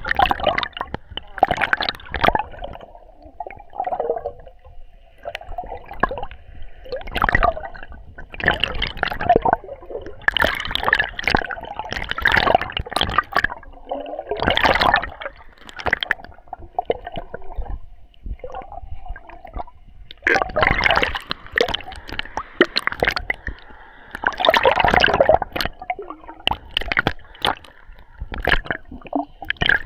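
Sea water splashing and gurgling against a waterproof action camera's plastic housing, in irregular surges every second or so.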